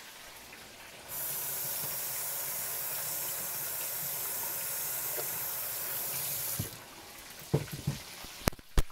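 Kitchen tap running as a hand is rinsed under it: a steady rush of water that starts about a second in and shuts off sharply a little over five seconds later. A few sharp knocks and clicks follow near the end.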